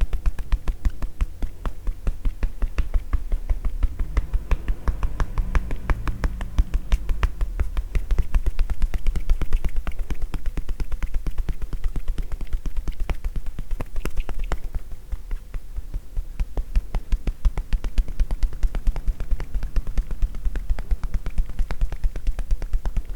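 Hands doing tapotement (kōdahō) massage, tapping rapidly and in an even rhythm on a person's shoulders and back with soft, hollow pops; the taps soften briefly a little past the middle.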